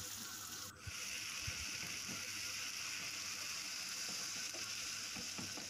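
Chopped onions and tomatoes sizzling gently in oil in a nonstick wok, with a silicone spatula making soft scrapes and taps against the pan as they are stirred. The sizzle drops out briefly just under a second in.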